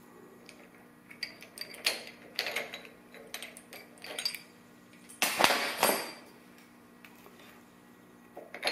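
Steel transmission parts and tools clinking and clattering as they are handled and set down on a workbench: a run of sharp metallic clinks over the first few seconds, a louder clatter about five and a half seconds in, then quiet until another clink near the end.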